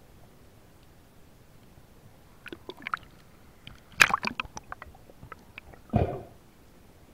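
Water sloshing with a scatter of sharp clicks and knocks, loudest in a quick run about four seconds in, then one short slosh about six seconds in.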